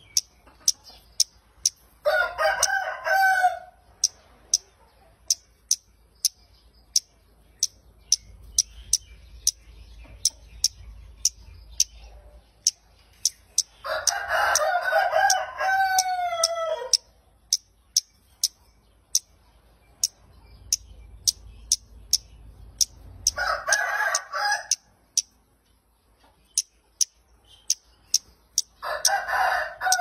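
A rooster crowing four times, each crow a couple of seconds long and ending in a falling tail: about two seconds in, around the middle, near the three-quarter mark and at the very end. Between and under the crows a small bird gives short, sharp, high chip calls about twice a second.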